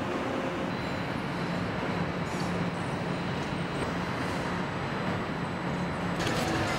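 Steady engine-assembly-line machinery noise: a constant hum with a low drone, and a few light metal clinks near the end.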